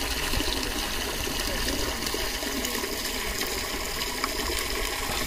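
Water gushing steadily from a pipe outlet and splashing into a shallow channel.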